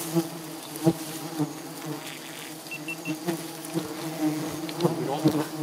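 A swarm of giant honey bees buzzing close by, a steady low drone with a few light knocks, the bees roused by their nest being cut for honey.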